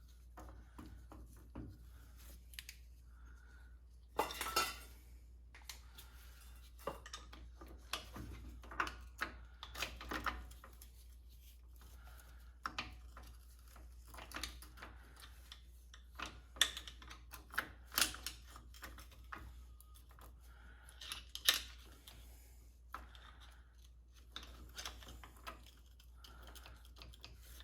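Hand tools clinking, tapping and scraping on the metal parts of a Spartan locker inside a Chrysler 8.25 differential, in irregular sharp metallic clicks and knocks with short pauses between.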